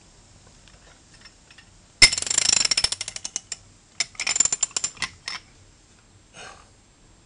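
Socket ratchet clicking in two quick runs, about two seconds in and again about four seconds in, as it winds in the forcing bolt of a flywheel puller on a GY6 150cc scooter engine, pressing the flywheel off the crankshaft.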